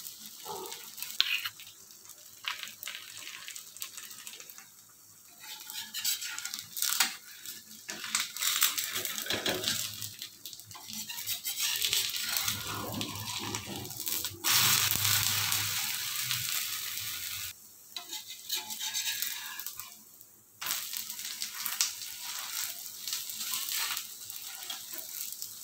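Oil and pooda batter sizzling on a hot iron tawa, with a metal spatula scraping and clicking against the griddle as the pancake is lifted and turned. The sizzle comes and goes and grows louder about halfway through.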